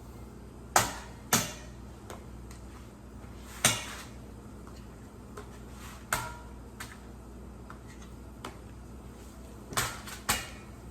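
A spoon knocking and clinking against a cooking pan, about half a dozen sharp separate knocks over a low steady hum, while butter is added.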